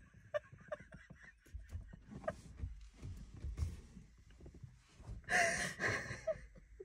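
Two women laughing in short, breathy bursts, with a louder laugh about five seconds in.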